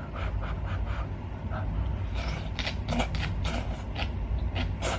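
Close-miked eating sounds: a mouthful of spicy stir-fried rice cakes being chewed, with many short wet smacks and clicks at an uneven pace, over a low steady hum.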